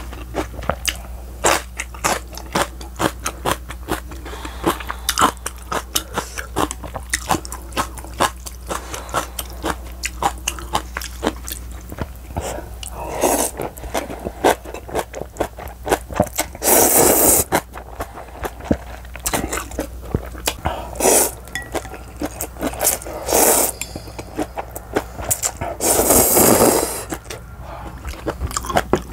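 Close-miked eating: wet chewing and crunching of kimchi with many small mouth clicks, then several loud slurps of thin wheat noodles from the soup, the longest two in the second half.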